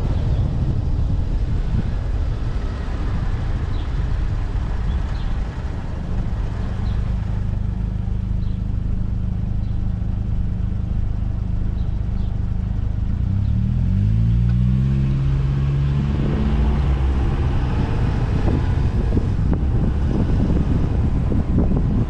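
City street traffic heard from a moving car: a steady low road and wind rumble, with a vehicle engine humming from about a third of the way in, rising in pitch as it speeds up a little past halfway, then fading out.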